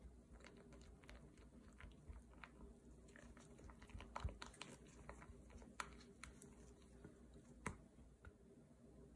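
Silicone spatula stirring and folding buttercream in a glass bowl: faint, irregular soft squishes and clicks, with a few sharper taps against the glass about 4, 6 and 8 seconds in.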